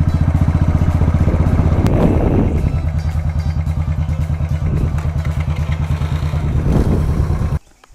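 Royal Enfield 350's single-cylinder four-stroke engine running steadily under way, with a rapid even beat. The sound cuts off abruptly near the end.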